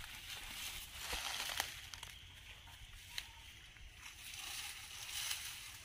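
Dry palm fronds and undergrowth rustling and crunching as a person and a goat push through them, in uneven surges with a few sharp twig-like cracks.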